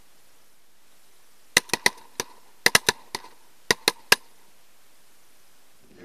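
A volley of shotgun shots from several hunters, with a semi-automatic shotgun cycling and ejecting shells: about ten sharp, loud reports in quick clusters, starting about a second and a half in and ending a little after four seconds.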